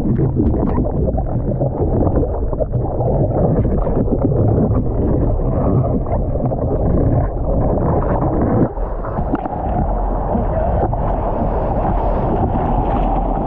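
Surf whitewater churning around a surfboard-mounted camera, a dense rushing and gurgling of water as the board goes under the broken wave and then rides the whitewater, with one brief dip about nine seconds in.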